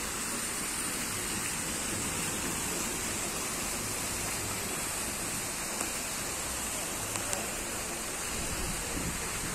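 Fountain water splashing steadily as its spouts pour into a stone basin.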